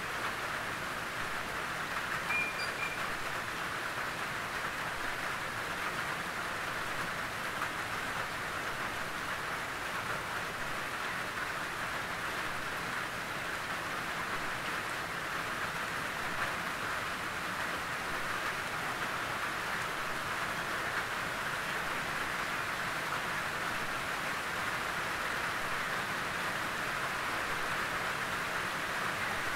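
Steady rain drumming on a tin roof, an even dense patter without a break.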